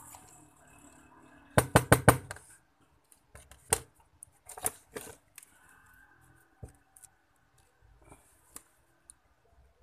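A quick run of about five sharp metallic clicks and knocks about a second and a half in, then scattered lighter clicks: metal tweezers and a soldering iron being handled against a mobile phone's circuit board.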